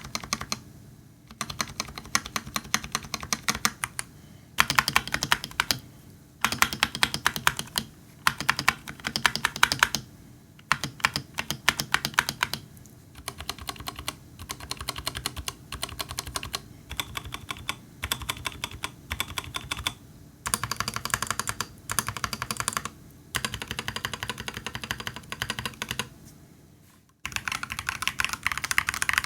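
Typing on a Royal Kludge RK96 tray-mounted mechanical keyboard with unlubed Akko Jelly Purple tactile switches and Akko ASA PBT keycaps, modded with case foam and a Poron switch pad. Fast runs of key clacks come in bursts of a second or two, with short pauses between them.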